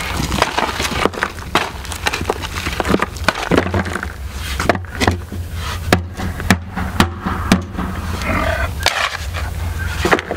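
Irregular knocks, clatters and scrapes of hand work with tools, over a steady low rumble.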